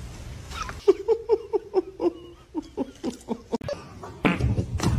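A person laughing in a quick run of short "ha-ha" pulses, then in scattered chuckles. Near the end a louder rustling, scuffling noise comes in.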